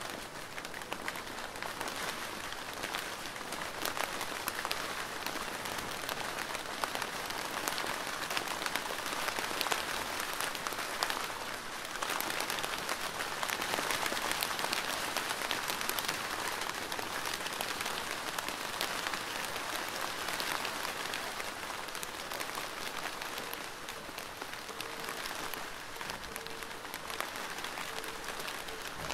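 Steady rain drumming on a plastic roof: a dense, even patter of many individual drops.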